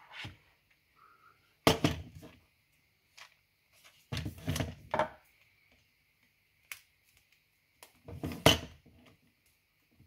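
A screwdriver blade prying at the plastic housing of a Bosch PSR Select cordless screwdriver, making sharp plastic clicks and knocks in several short clusters, the loudest about two seconds in and near the end.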